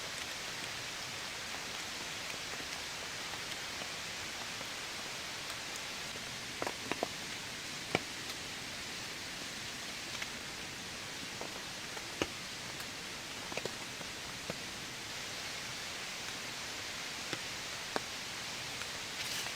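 Steady rain falling, with a few sharp drip taps standing out now and then.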